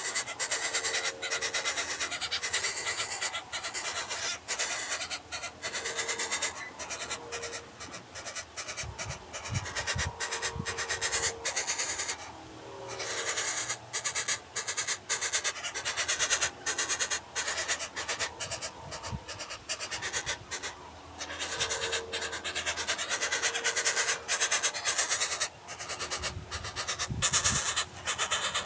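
Coucal calling: short runs of low, hollow hoots that come and go several times, over a steady crackling, rustling noise with a few low thumps.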